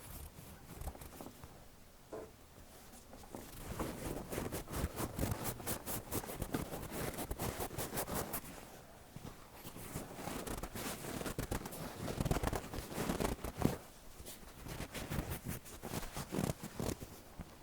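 Cotton pad rubbing and wiping over the ear of an ASMR binaural microphone, giving close, crackly, scratchy strokes. It is soft for the first few seconds, then louder in stretches with brief pauses.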